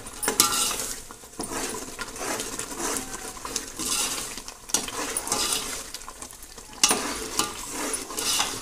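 Metal ladle stirring and scraping a thick spice masala frying in oil in a metal pot, with a steady sizzle under repeated scrapes; one louder scrape comes about seven seconds in. The masala is being roasted (bhuna) in the oil.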